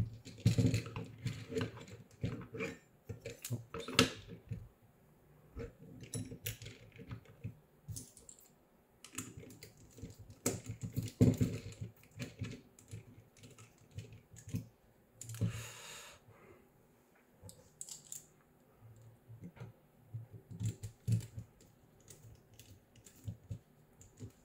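Irregular small clicks and taps of a precision screwdriver turning screws into a 3D-printed plastic motor clamp and bracket, with plastic parts being handled, and one short scrape about two-thirds of the way through.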